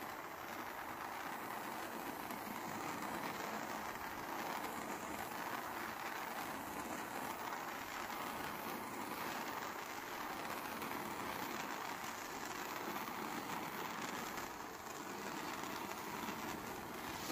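Handheld propane torch flame hissing steadily while it is swept over a wet epoxy coat to pop surface bubbles.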